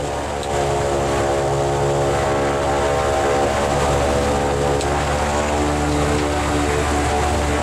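Twin Rotax 912 engines of a Che-29 amphibian running steadily, heard from inside the cabin, getting louder about half a second in as the right engine is checked one ignition circuit at a time.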